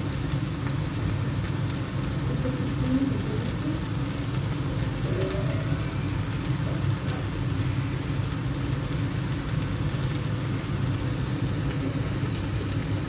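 Chicken strips frying in oil in a cast-iron grill pan: an even sizzle with a low hum underneath.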